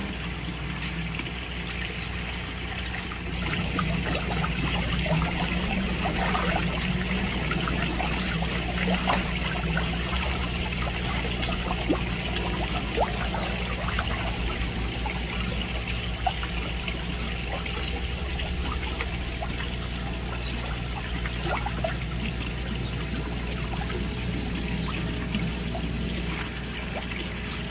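Water trickling and splashing in a concrete fish tank whose surface is churned and foamy, over a steady low machine hum.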